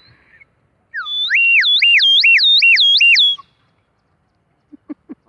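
A person whistling loudly to call a dog: a rapid warble that jumps between a low and a high note about three times a second for two to three seconds, then stops abruptly.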